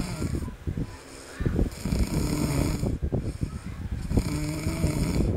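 A sleeping baby snoring: rattling, buzzing snores on successive breaths, with a short lull about a second in.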